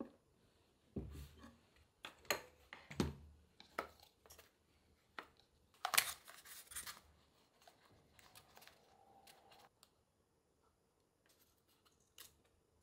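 Small craft parts being handled on a cutting mat: a few light knocks and clicks, then a louder rustling scrape about six seconds in while clear plastic tubing is fitted into a small black box.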